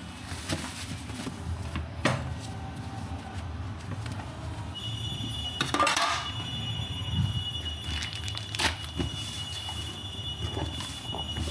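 Kitchen handling noises: a plastic food box and steel trays being moved, with a few sharp knocks. A steady high electronic tone comes on about five seconds in and keeps sounding.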